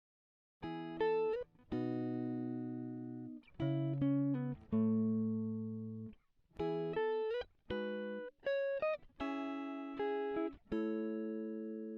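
Background music: a guitar playing a melody of single plucked notes, some bent or slid in pitch. It starts about half a second in, after a moment of silence.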